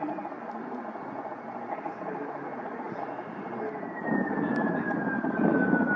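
An aircraft passing by, its engine noise swelling about two-thirds of the way through, with a high whine that falls steadily in pitch as it goes by.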